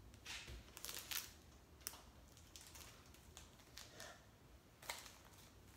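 Faint handling sounds of a makeup brush being unwrapped: a few scattered light rustles and taps of a thin plastic sleeve, the clearest about a second in and near the end, over an otherwise near-silent room.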